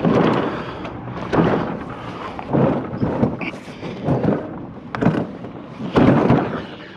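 A heavy metal scrap item with its doors removed is walked corner by corner across a surface. It makes a series of scraping thuds, about one every second, with a short squeak about three seconds in.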